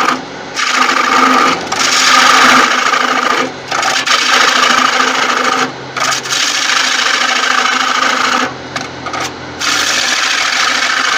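Bowl gouge cutting the inside base of a wooden bowl turning on a lathe: a loud, steady scraping cut in about five passes, broken by short gaps as the tool comes away, over the lathe's low steady hum.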